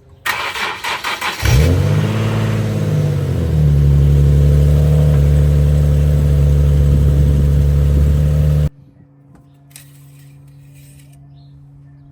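Nissan 370Z's 3.7-litre V6 cranked on the starter for about a second, then catching with a brief rev flare that rises and falls before settling into a steady idle, on its first start after an oil change. The sound cuts off suddenly near the end, leaving a faint steady hum.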